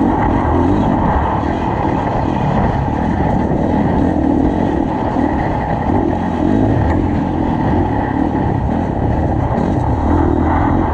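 Off-road enduro motorcycle engine running hard on a dirt trail, its note wavering as the throttle opens and closes, heard from the rider's helmet-mounted camera.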